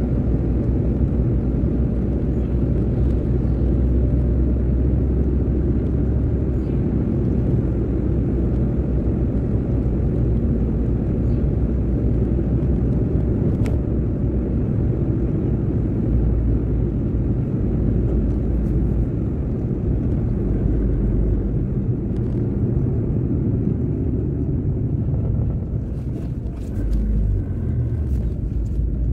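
Steady low rumble of a car driving at an even speed, its engine and tyre noise carrying with no change in pace. A faint tick comes about halfway through, and near the end the rumble dips briefly under a few faint clicks.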